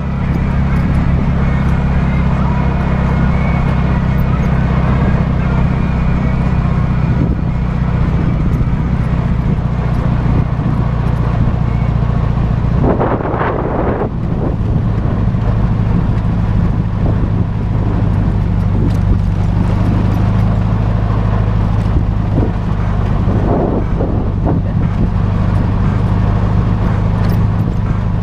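Trike engine running steadily under way, with a short rush of noise about halfway through, after which the engine note shifts slightly.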